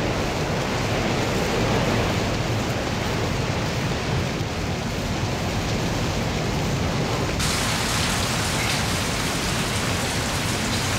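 Heavy rain pouring steadily in a storm, turning hissier about seven seconds in.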